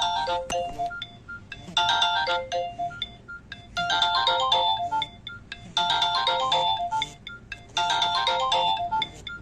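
Nokia 6288 mobile phone playing a ringtone: a short, bright phrase of quick separate notes, repeated about every two seconds.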